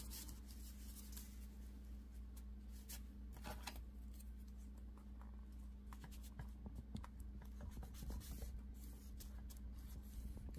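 Faint scratching of a stylus drawn along a scoring board's groove, pressing a fold line into brown paper, with some paper handling.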